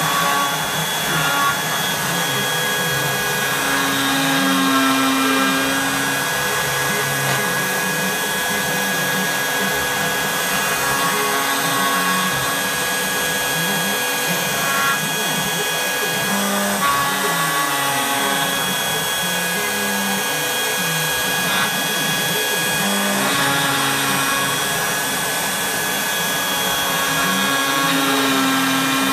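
CNC router carving a wooden sign: the spindle runs with a steady high whine while the stepper motors whine underneath, changing pitch in short steps and glides as the gantry moves the bit.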